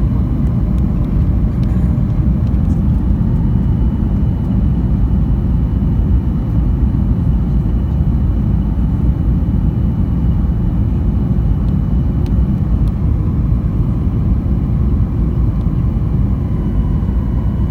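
Steady cabin roar of a Boeing 737 in descent on approach, from the jet engines and the airflow over the airframe, heard from inside the passenger cabin. The roar is deep and even, with a faint steady high whine above it.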